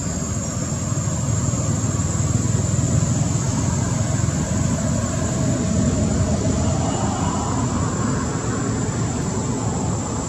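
Low, unsteady rumble of wind buffeting the microphone, over a constant high-pitched insect drone.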